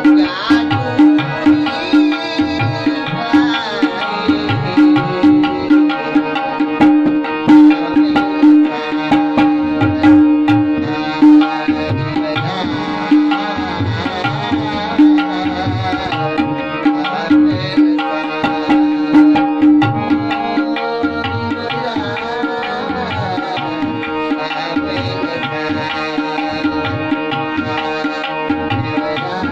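Kafi sung by a male voice to harmonium and tabla: the harmonium holds steady tones under the wavering melody while the tabla keeps a regular beat. The tabla strokes are strong for the first twenty seconds or so and lighter after that.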